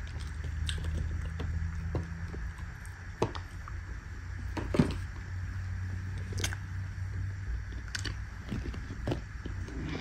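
Fingers pressing into packed, squeaky white powder in a plastic tub, giving a handful of separate soft crunches and squeaks, the strongest about halfway through, over a steady low hum.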